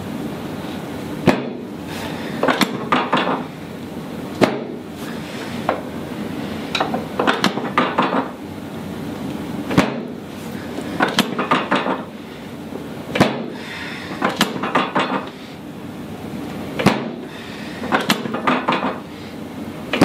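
Chiropractic drop table's drop section slamming down with a sharp clack five times, three to five seconds apart, as rib drop adjustments are thrust on a scoliosis patient. Each clack is followed by a quicker run of small clicks and rattles from the table.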